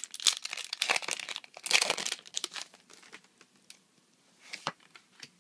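A Pokémon card booster pack's foil wrapper crinkling and tearing as it is ripped open, densest in the first two and a half seconds. After that come quieter scattered rustles and taps as the cards inside are handled.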